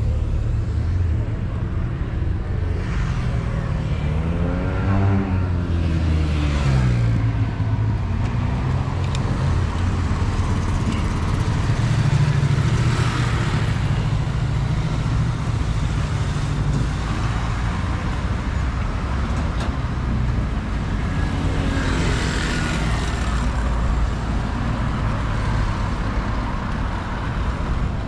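City road traffic: a steady rumble, with vehicles passing close by. One passing engine rises and then falls in pitch about five seconds in, and more vehicles swell past later on.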